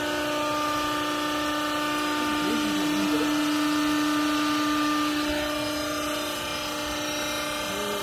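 Used-clothes hydraulic baler's electric motor and hydraulic pump running with a steady hum while the press works. The hum swells slightly in the middle and eases a little after about six seconds.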